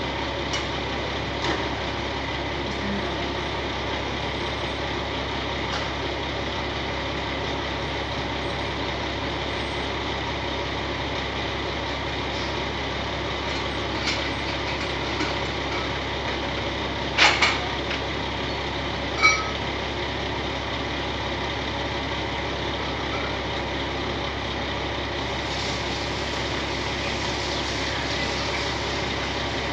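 Heavy construction vehicle engine idling steadily, with a few short sharp knocks past the middle, the loudest a double knock.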